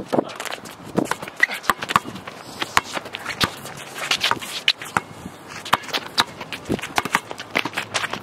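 A basketball bouncing on asphalt during dribbling, with players' footsteps and sneaker scuffs on the court: many short, sharp knocks at irregular intervals.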